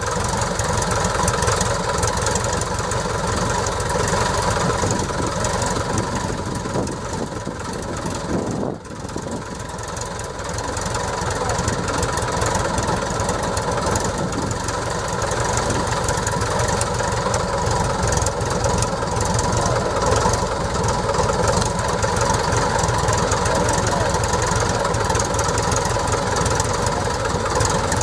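Piper J-3 Cub's engine running steadily at low power, propeller turning, with a brief dip in loudness about nine seconds in.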